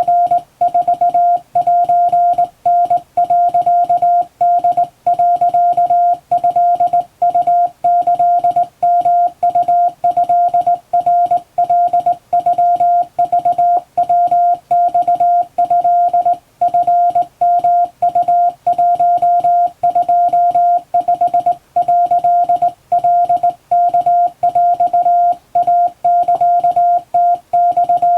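Japanese Wabun Morse code sent by hand on a vertical straight key: a single steady beeping tone keyed on and off in a quick, continuous stream of dots and dashes, with short pauses between characters.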